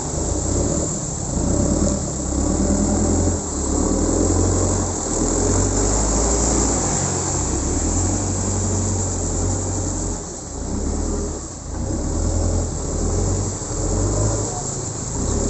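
Diesel engine of a Terex 970 Elite backhoe loader running, its level rising and falling as the machine works.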